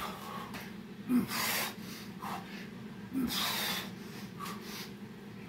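A man breathing hard mid-set of burpees: two forceful exhales through the mouth and nose, about two seconds apart, each opening with a brief grunt.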